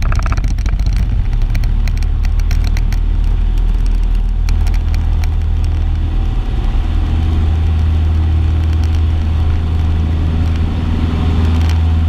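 Cessna 162 Skycatcher's four-cylinder Continental O-200 engine and propeller running steadily at full power during the takeoff roll, heard from inside the cockpit.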